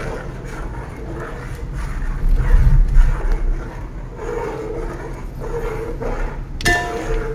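Metal ladle stirring vermicelli and milk in an aluminium pot, with a low rumble about two to three seconds in and a sharp metallic clink of the ladle near the end.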